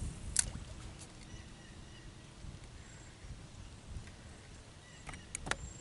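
Quiet low rumble of wind and water around a small boat, with a sharp click from the fishing rod and reel about half a second in and a few more clicks near the end.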